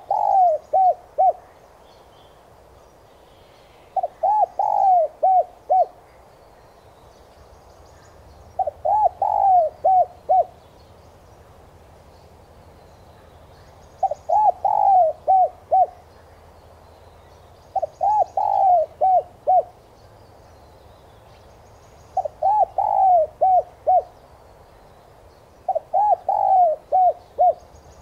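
Spotted dove cooing: a phrase of four or five quick, mellow coos, repeated about every four seconds, seven times over.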